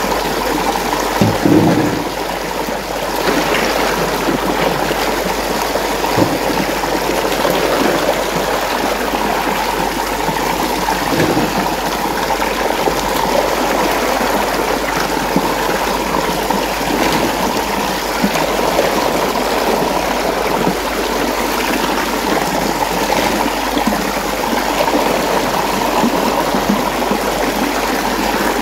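Water running and swirling steadily in a whirlpool, with a few brief knocks scattered through.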